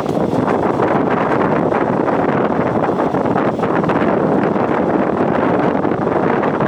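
Loud, steady wind buffeting the microphone from a moving passenger train, with the train's running noise underneath.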